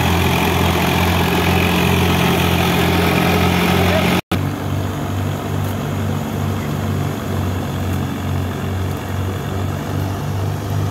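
Swaraj 744 FE tractor's three-cylinder diesel engine running steadily under load, driving a thresher. The sound breaks off for an instant about four seconds in, then the engine and thresher continue slightly quieter with a regular pulsing beat.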